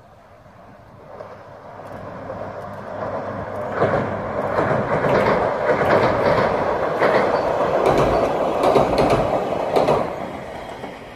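JR Kyushu 817 series electric train crossing a steel girder railway bridge: a rumble with wheels clacking over the rail joints. It builds over the first few seconds, is loudest in the middle and fades near the end.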